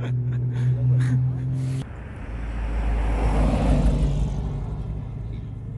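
A steady low droning hum cuts off abruptly a little under two seconds in. Then a classic car's engine passes by, swelling to its loudest about halfway through and fading away.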